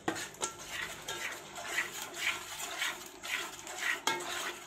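Metal spoon stirring and scraping a thick masala-and-yogurt paste against a steel pot, about two scrapes a second, as the spice paste is fried.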